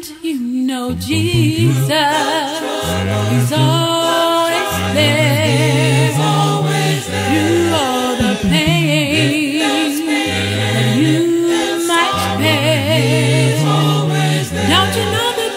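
Gospel vocal group singing a cappella in several parts, low sustained bass notes under higher voices with vibrato.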